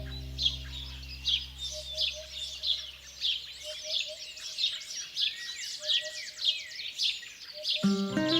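Small songbirds chirping over and over in quick short calls, with a brief rapid trill about six seconds in. Soft background music fades out in the first seconds and comes back just before the end.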